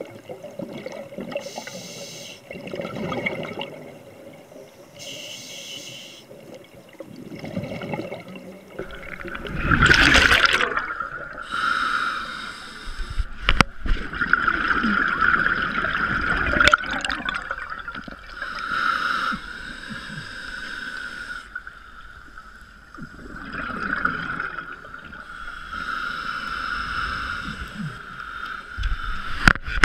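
Underwater sound of a scuba diver breathing through a regulator: hissing breaths and gurgling exhaled bubbles, swelling and fading every few seconds.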